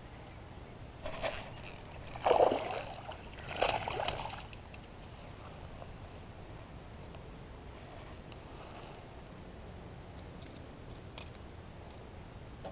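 Water splashing in three short bursts over the first few seconds, then a few faint light clicks near the end.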